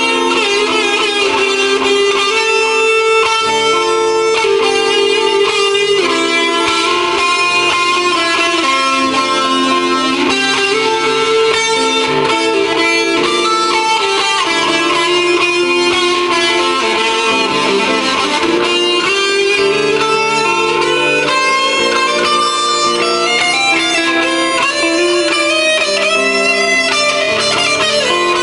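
PRS S2 electric guitar with Bare Knuckle pickups, played through a PRS amplifier and Altec speaker with reverb and delay: improvised melodic lines of ringing notes over held lower notes.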